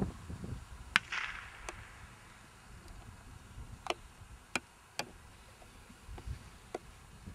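A single sharp crack about a second in, trailing off in a fading hiss: a distant blank shot, as fired to mark a thrown dummy for the retriever. Several fainter sharp clicks follow a few seconds later.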